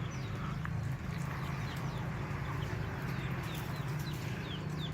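Chickens, with many short high peeps sliding downward in pitch, scattered throughout, over a steady low hum.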